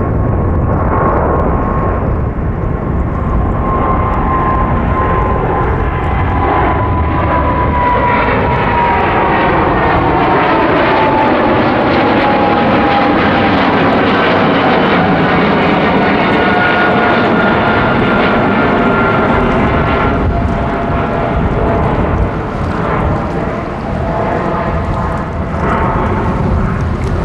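Boeing 777-300ER's GE90-115B turbofan engines climbing out after takeoff: a loud, steady jet rumble with a fan whine that slowly falls in pitch as the airliner passes and moves away.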